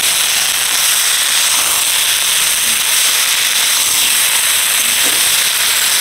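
Eggplant, flat beans, potato and tomato pieces sizzling in hot oil in a pan on a gas stove as they are stirred with a spatula: a loud, steady hiss.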